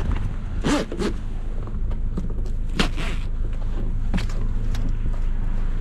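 Several sharp knocks and clunks, about six over a few seconds, over a steady low rumble of strong wind.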